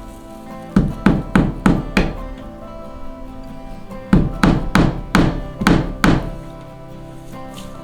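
Hammer blows in two quick runs of five or six strikes each, about three a second, the second run a couple of seconds after the first. Background guitar music plays throughout.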